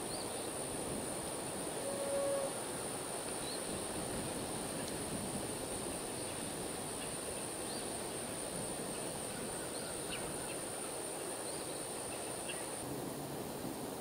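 Outdoor field ambience: a steady low rumble, a thin, steady high-pitched insect drone, and a few faint, scattered bird chirps, with one brief short tone about two seconds in.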